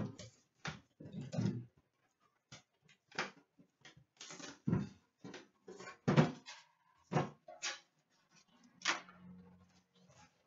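Metal Upper Deck Series 2 hockey card tin and its wrapped card packs being handled and opened on a glass counter: a string of separate clicks, knocks and rustles at an uneven pace.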